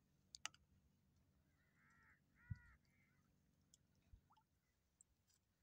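Near silence with faint bird calls: three short calls in quick succession about two seconds in, plus a sharp click near the start and a soft low thump.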